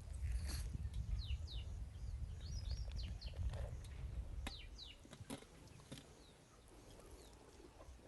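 Small birds chirping in short, quick falling calls, several times, over a low rumble that dies away about five seconds in.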